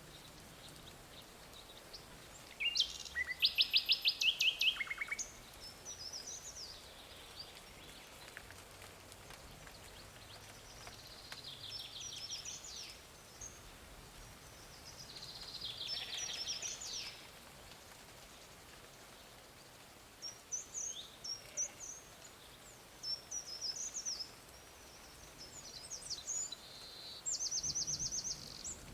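Wild birds singing: several bouts of rapid high trills and short chirps, the loudest a few seconds in, over a faint steady background hiss.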